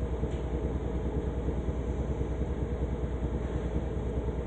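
A machine running steadily with a low hum and a fast, even throb.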